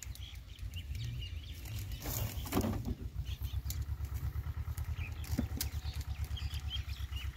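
Sonalika Baagban DI-30 RX mini tractor's diesel engine idling with a steady, evenly pulsing low rumble, with a brief louder noise about two and a half seconds in.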